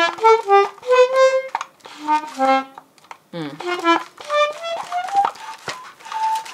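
Flying Tiger Copenhagen mini toy accordion played by hand: a quick melody of single reedy notes in short phrases with brief gaps, ending on a few longer held notes.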